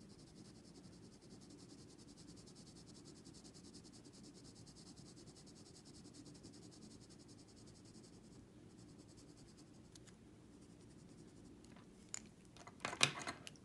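Faint scratching of mechanical-pencil lead on paper in quick, short shading strokes, easing off about eight seconds in. A few clicks follow, then louder knocks near the end as the pencil is handled.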